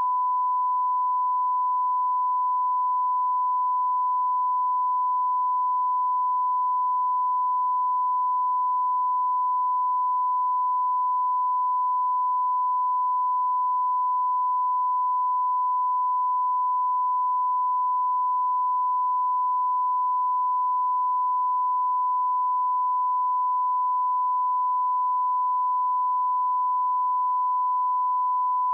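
Broadcast test tone that goes with SMPTE colour bars: a single steady, unbroken 1 kHz sine tone.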